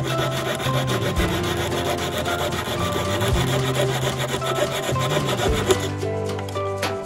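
Jeweler's saw cutting through a small metal part held on a wooden bench pin, in rapid back-and-forth strokes that stop about a second before the end, over background music.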